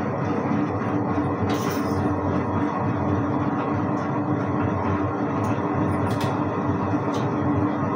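Tabletop wet grinder running steadily, its motor and stone rollers turning through dosa batter with a constant hum. A few brief clicks are heard.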